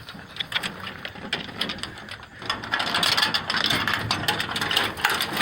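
Crunching and rustling of dry leaves and brush being pushed through, a dense run of crackles that grows louder about halfway in.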